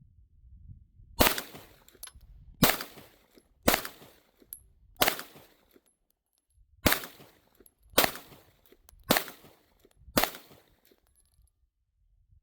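Sig Sauer P365 pistol, fitted with a Wilson Combat grip frame, fired in two strings of four shots. The shots come a little over a second apart, with a pause of about two seconds between the strings.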